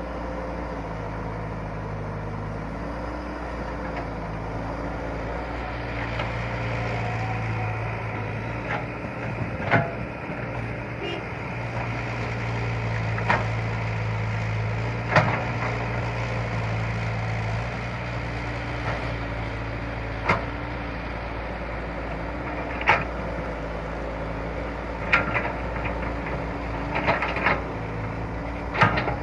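Excavator's diesel engine running steadily, a little louder for a stretch in the middle as it works, with a dozen sharp knocks through the second half and several close together near the end.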